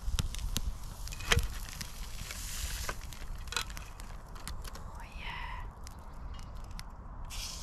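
A few sharp clicks and taps of a metal fork on a small wire grill rack as a steak stuck to the rack is prised off, the loudest about a second in, over a steady low rumble.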